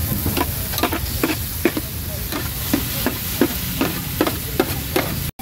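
Metal spatula scraping and clanking against a large flat iron wok as noodles are stir-fried, about two to three strokes a second over a steady sizzle. The sound drops out briefly near the end.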